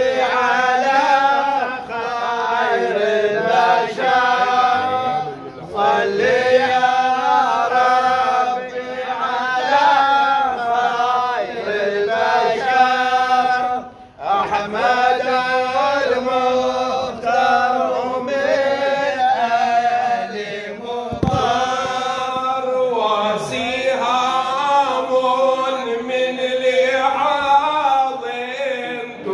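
Men's voices chanting a devotional praise song for the Prophet Muhammad together, in long drawn-out sung phrases, with a short break about halfway through.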